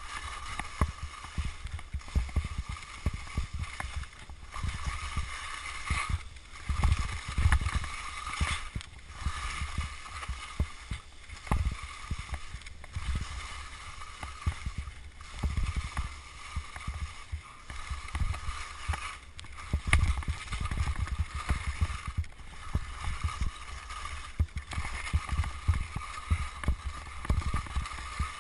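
Wind buffeting a helmet-mounted action camera's microphone, with telemark skis scraping over hard, icy snow. The noise swells and eases about every two seconds with the turns.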